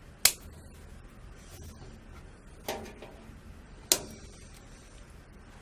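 Three sharp plastic clicks from cable ties being fastened or trimmed on the wiring inside a computer case. The clicks fall about a quarter second in, near the middle and about four seconds in.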